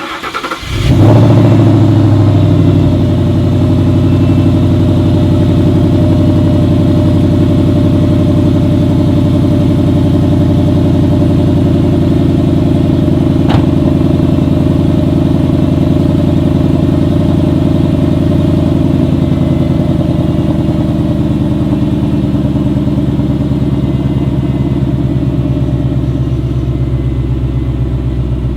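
2011 Mustang GT's 5.0 V8 on stock mufflers cold-starting: it turns over and catches at once, flares up about a second in, then settles into a loud, steady fast idle that eases slightly near the end.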